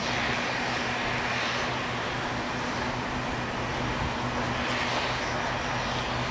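Steady, distant engine drone with a constant low hum under an even hiss of background noise.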